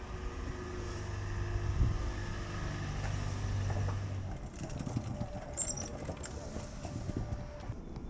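A car driving slowly past, its engine hum building to loudest about three to four seconds in and then dying away, followed by scattered light clicks.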